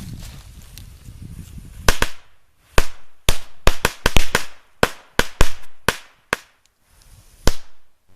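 Firecrackers going off: about sixteen sharp bangs at irregular intervals, starting about two seconds in and running for about five and a half seconds, some with a short echo.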